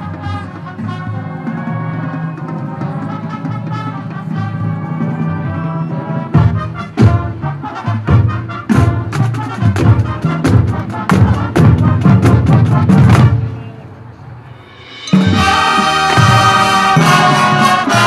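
High school marching band and front-ensemble percussion playing. Sustained brass chords give way, about six seconds in, to a run of loud accented hits from the brass and drums. After a brief quieter dip, the full band comes back in loud and bright near the end.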